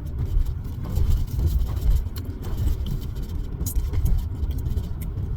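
Low, steady rumble of a car heard from inside the cabin, with a few faint clicks and rustles.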